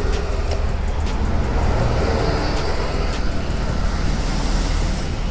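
Road traffic and motor vehicle engines running, a steady heavy rumble with a few light clicks.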